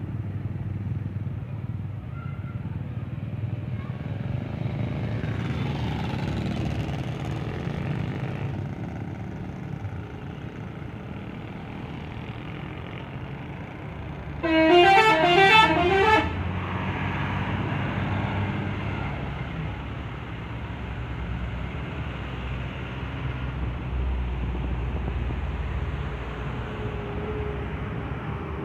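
A bus's telolet horn plays its quick run of stepping musical notes once, for just under two seconds, about halfway through. It is the loudest sound here, over a steady rumble of bus engines and traffic.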